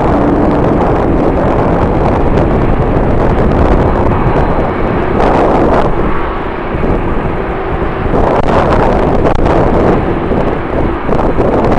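Strong wind buffeting the microphone in loud, gusting surges, with a faint steady hum underneath, likely jet engines running at the airport.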